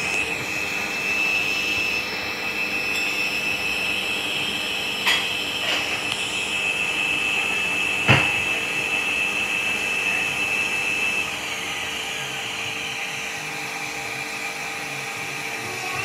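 Hoover Dynamic Next washing machine running, its drum motor giving a high steady whine, with a single sharp knock about eight seconds in. From about eleven seconds in the whine falls in pitch and the machine quietens as the drum slows. The load is foamy, and the machine is going through its sudslock routine for excess suds.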